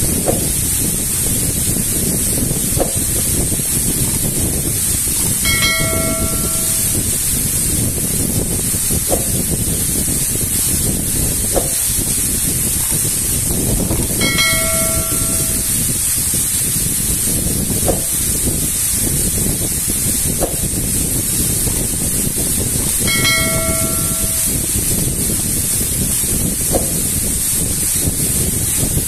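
Waterfall pouring onto rocks: a loud, steady rush of falling water. Three times, about nine seconds apart, a short bell-like ding sounds over it, from a looped subscribe-button sound effect, with faint clicks in between.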